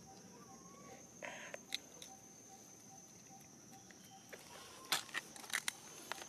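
Insects droning in a steady high tone, with a few sharp clicks and taps, several close together near the end.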